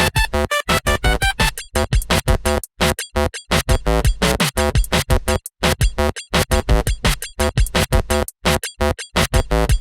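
Upbeat electronic music of rapid, choppy stop-start synth notes over a drum-machine beat.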